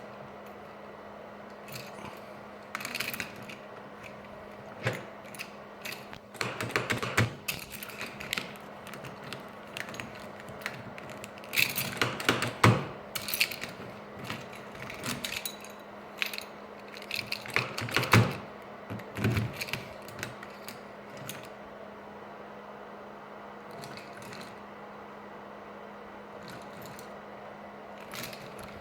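A run of irregular mechanical clicks and clunks, loudest about 12 and 18 seconds in, over a steady low hum.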